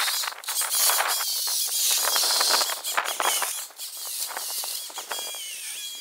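Chainsaw cutting through brush and small limbs in sped-up footage, so its motor whine is high-pitched and glides up and down over a rapid crackle of cutting and snapping wood. The sound grows quieter from about four seconds in.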